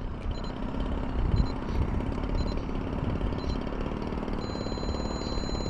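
Remote-control model airplane flying, heard as a rough, steady low rumble, with a thin high whine joining near the end.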